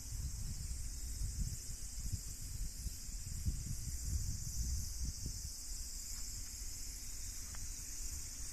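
Steady high-pitched insect chorus, with a low, uneven rumble underneath.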